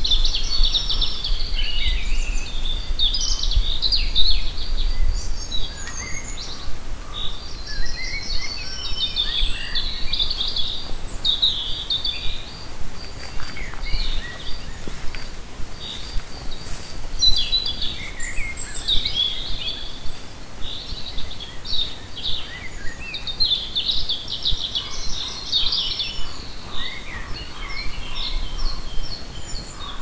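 Several songbirds singing, with short varied chirping and warbling phrases overlapping one after another. A low rumble sits under them for the first few seconds and again near the end.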